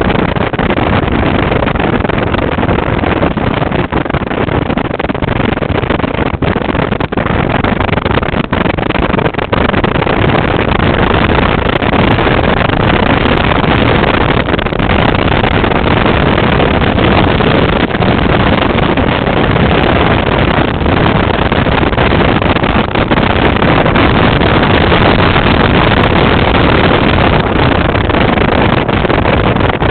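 Moving car: a loud, steady rush of wind and road noise with no letup.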